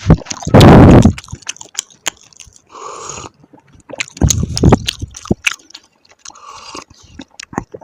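Close-miked mouth sounds of a person eating: chewing and biting. There is a loud burst about a second in and another about halfway through.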